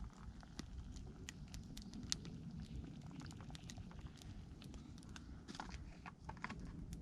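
Small wood campfire crackling, with sharp irregular pops and snaps and a cluster of them a little before the end, over a low steady rumble.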